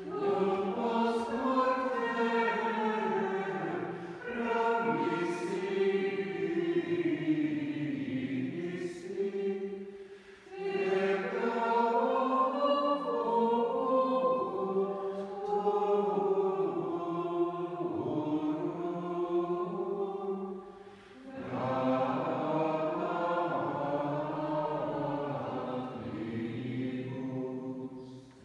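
Dominican friars and congregation singing a Vespers chant together, in four long phrases with brief breaks for breath between them.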